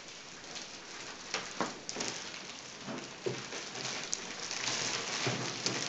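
Plastic wrapping crinkling and rustling as a computer tower is pulled out of its packing, with scattered small crackles and clicks.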